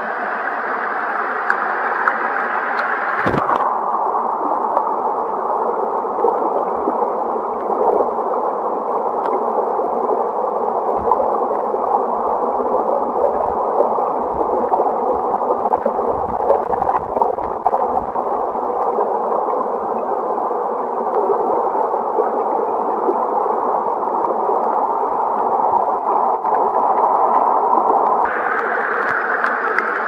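Mountain stream water rushing, a steady muffled noise. A knock about three seconds in, after which the sound turns duller until shortly before the end.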